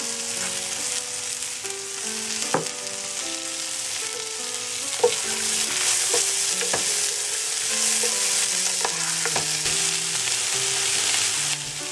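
Diced vegetables sizzling in hot oil in a nonstick frying pan, just after still-frosted frozen peas and carrot are added, with a spatula stirring and knocking against the pan a handful of times.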